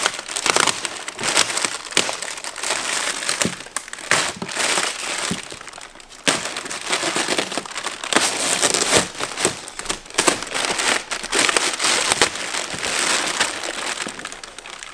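Plastic packaging crinkling and crackling as it is handled and pulled open to free parts from a box, with irregular sharp crackles throughout.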